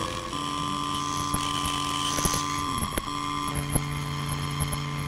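Steady electronic hum of several held tones, with irregular crackles and clicks of static. The tones break off briefly at the start and again about three seconds in.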